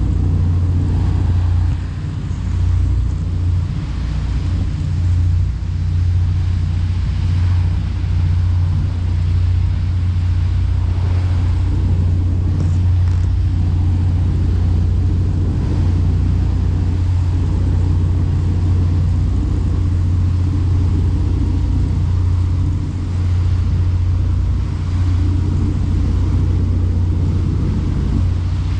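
Boat engine running steadily, a constant low drone with a rush of water and wind over it.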